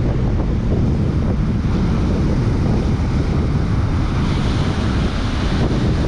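Heavy wind buffeting the microphone in a steady low rumble, over rough surf breaking and washing up the beach.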